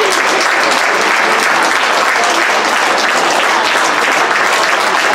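Crowd applauding steadily, many hands clapping together without a break.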